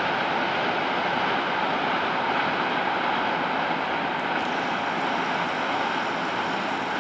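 Freight train rolling past, its wagons' wheels making a steady, even rushing noise on the rails.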